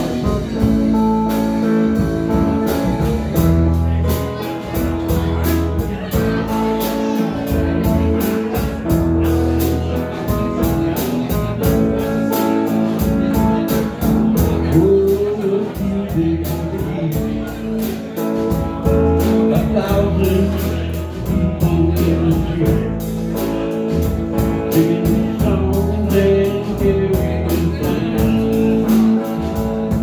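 A live band playing blues-rock on amplified electric guitars and a drum kit, with a steady bass line and regular cymbal beats.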